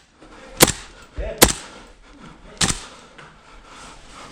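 Airsoft guns firing single shots: three sharp cracks spread over about two seconds, with a weaker crack between the first two.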